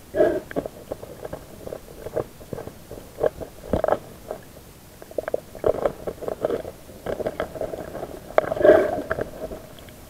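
Muffled underwater knocks, clicks and scrapes as a hand digs and feels among rocks and coral on the seabed, coming irregularly with a few louder knocks.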